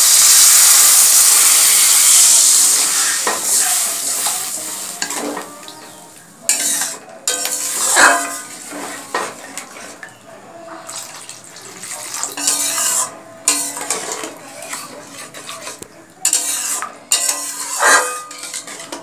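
Water poured into a hot pan of fried spice paste and potatoes, hissing and sizzling loudly at first and dying away over about five seconds. After that, a metal spatula stirring the thin gravy, scraping and knocking against the pan in separate strokes every second or two.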